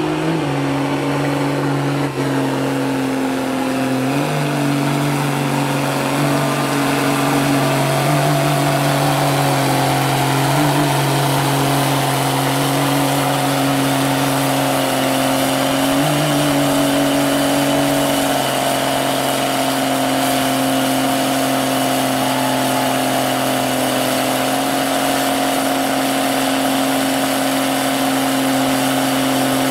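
Lifted mud truck's engine held at steady high revs as it churns through a deep mud pit. Its pitch steps up and down slightly a few times, then holds.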